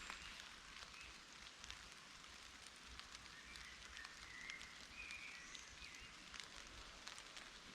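Near silence: faint outdoor ambience with a few faint, short high chirps in the middle and scattered light ticks.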